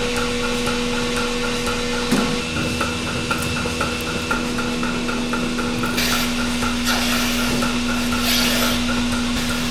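A steady machine hum with a regular ticking about three times a second, broken by short hisses about six and eight seconds in.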